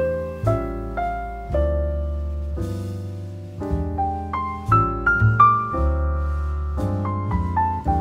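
Background piano music: a slow melody of single notes over sustained low bass notes.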